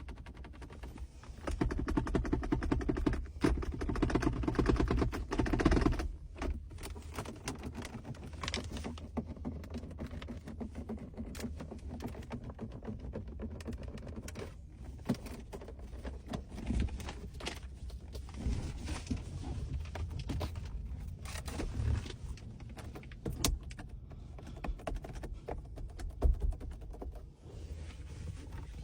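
Interior trim of a 2019 Ford F-150 Lariat's cabin being pressed, tapped and moved by hand, creaking. A dense run of quick creaks and rattles starts about a second and a half in and lasts a few seconds, followed by scattered clicks, taps and knocks from the panels.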